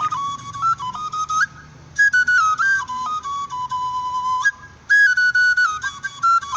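Igbo oja, a carved wooden flute, playing three piping phrases of quick stepped notes. Each phrase starts high, steps down and jumps back up, with a short break between phrases.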